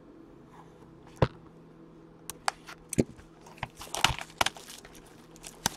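Hands opening a foil trading card pack and handling the cards: a sharp click about a second in, a few more clicks, then a run of crinkling and crackling from the wrapper and cards around four seconds in, and one last click near the end.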